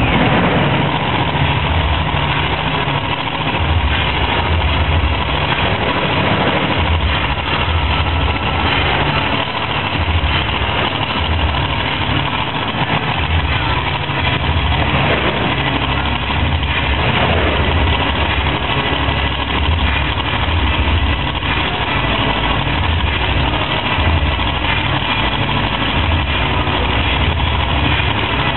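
Monster truck engine idling, a loud low rumble that pulses unevenly.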